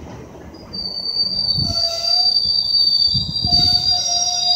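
GO Transit bilevel passenger coaches rolling past with their steel wheels squealing: a steady high-pitched squeal sets in just under a second in, joined by a lower squeal tone, over a few low thuds from the running gear.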